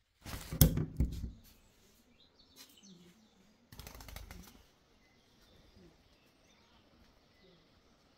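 Rustling and knocking of the recording phone being handled against bedding in the first second, then a second, softer burst of handling noise about four seconds in. Faint birds chirping and calling throughout the rest.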